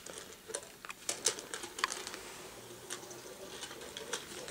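Toy train on its plastic track: light irregular clicks and taps over a faint steady hum.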